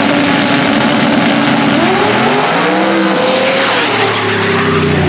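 Drag-race Toyota Sprinter Trueno's engine held at steady high revs on the starting line, then launching about two seconds in, its pitch climbing and dropping back at each of three quick gear shifts.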